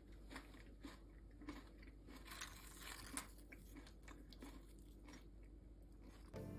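Faint, crisp crackles of tortilla chips being handled as a hand picks them from the bowl, with a knife spreading guacamole onto a chip.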